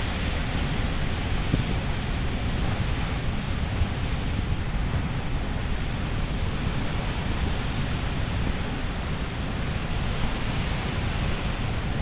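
Pacific Ocean surf breaking against rocks: a steady, unbroken rush of waves and spray with a deep rumble underneath.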